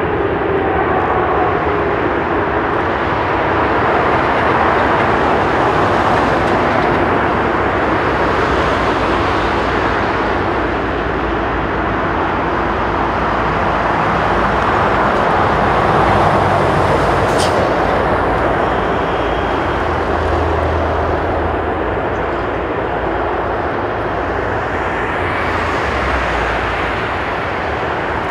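Boeing 777-200ER's twin jet engines running at power, a loud, steady rush of jet noise as the airliner moves along the runway.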